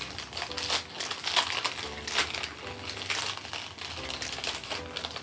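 Crinkly pink wrapping being pulled off and crumpled by hand, with a quick, irregular run of crackles.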